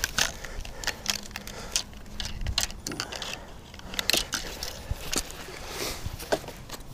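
Fishing tackle and a landing net being handled: irregular clicks, rustles and scrapes.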